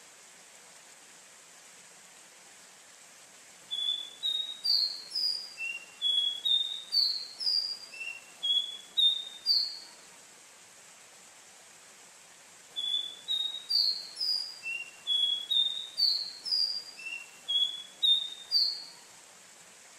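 Caboclinho, a small Brazilian seedeater, singing two bouts of clear, slurred whistled notes about two to three a second, each bout about six seconds long and the second much like the first, with a pause between them over a faint steady hiss.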